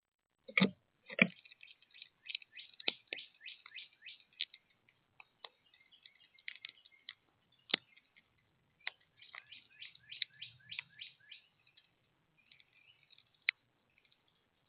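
Small birds chirping in quick runs of high notes, with sharp clicks scattered among them. Two louder knocks come about half a second apart near the start.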